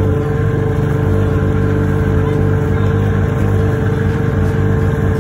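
Snowmobile engine running at a steady speed under load while towing two sleds on ropes, an even drone with no change in pitch.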